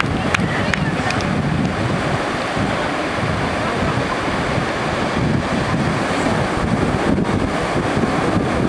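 Ocean surf breaking on a beach, a steady rushing noise, with wind gusting on the microphone.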